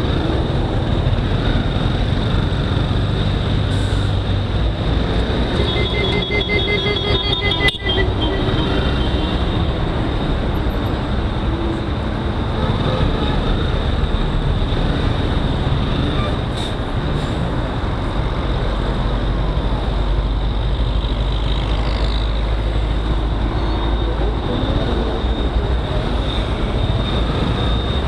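Motorcycle engine and road noise running steadily in heavy traffic. A vehicle horn sounds for about two seconds around six seconds in.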